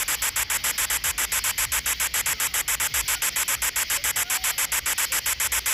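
GhostTube ghost-box app's sweep static: hiss chopped into rapid, evenly spaced pulses, several a second, strongest in the highs. This is the scanning noise that the app pulls supposed spirit words out of.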